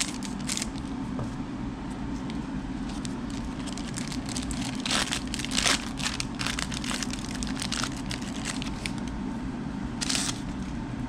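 Trading-card pack wrapper crinkling and crackling as it is torn open and handled, in scattered irregular crackles with a louder burst near the end.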